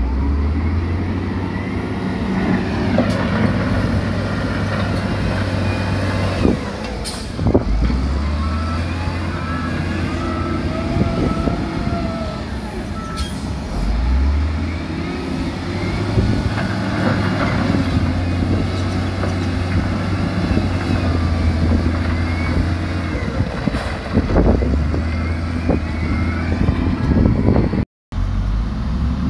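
Heavy diesel engines of dump trucks and wheel loaders running and changing revs several times, with higher squeals and a few sharp knocks from the machines working. The sound cuts out for a moment near the end.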